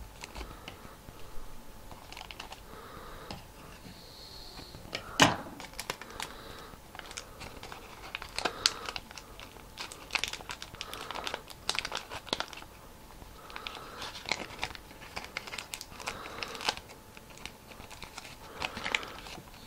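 Paper boat and wide clear adhesive tape crinkling and crackling as fingers press and smooth the tape onto the paper, a string of irregular crackles with a sharp, loud crackle about five seconds in.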